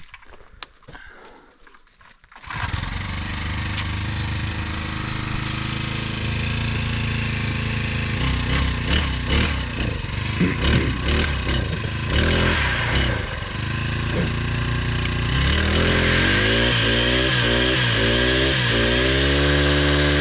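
Petrol brush cutter fitted with an 80-tooth saw blade starting about two seconds in, then running and being revved up and down. In the last few seconds a high whine rises and falls with each rev, which onlookers liken to a turbo and suspect is a bad bearing in the engine.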